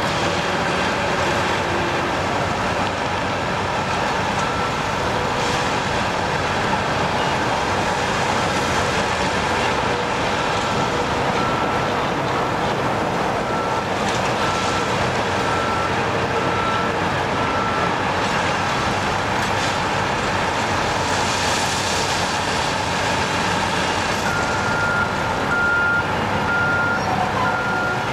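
Track tamping machine and ballast regulator running steadily as the track is leveled and tamped, a continuous heavy machinery drone. A backup alarm beeps at a steady rate, about once a second, through the middle and again near the end.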